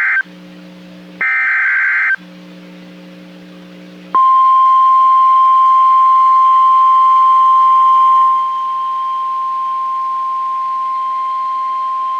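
NOAA Weather Radio Emergency Alert System (SAME) header: the tail of one short raspy electronic data burst, then another lasting about a second, with a faint hum between them. About four seconds in, the 1050 Hz warning alarm tone begins, a single steady pitch that drops in loudness about four seconds later and holds. It marks the start of a new tornado warning broadcast.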